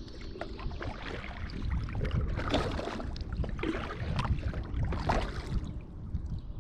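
Kayak paddle strokes splashing in the water, two strongest strokes about two and a half and five seconds in, over a steady low rumble.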